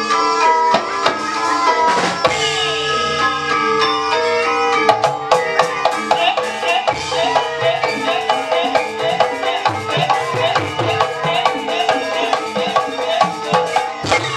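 Javanese gamelan music accompanying an ebeg performance: sustained ringing metal tones with frequent hand-drum strokes, and a wavering melody line that joins about five seconds in.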